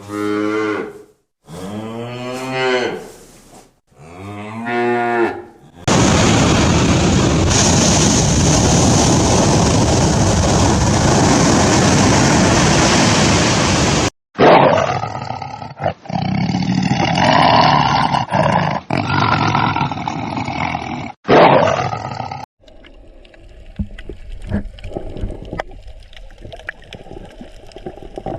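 A cow mooing, three long falling moos in the first six seconds, followed by about eight seconds of steady loud rushing noise and then a run of other irregular calls that stop abruptly.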